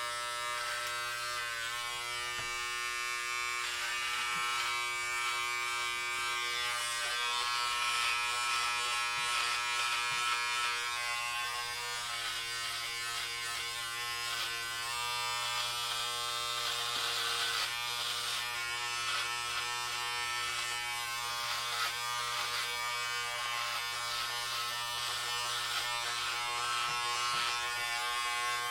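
Electric hair clippers running with a steady buzzing hum while cutting hair, a rasping hiss rising and falling over the buzz as the blades move through the hair.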